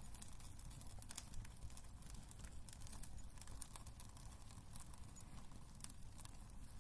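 Wood fire burning in a fireplace: a faint low rumble with irregular small crackles and pops, one sharper pop about a second and a half in.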